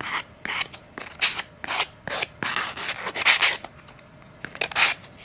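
A thin clear plastic servo cover being hand-sanded with 300-grit sandpaper on a sanding block: a run of short scratchy back-and-forth strokes, about two a second.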